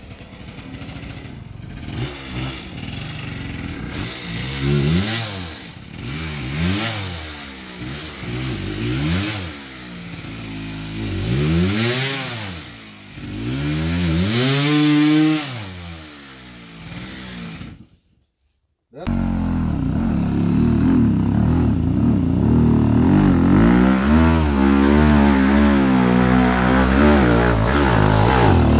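Dirt bike engines revving, the pitch rising and falling about once a second as the bikes work up the trail. After an abrupt break of about a second, a closer bike's engine runs louder and more steadily, with the throttle fluttering.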